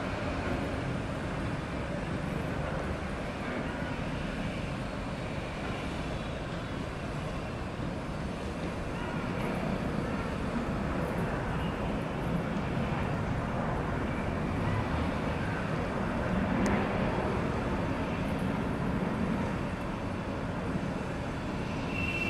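Steady rumble of a Boeing 737-800's CFM56 jet engines heard from far off as the airliner rolls out and taxis after landing, blended with city traffic noise.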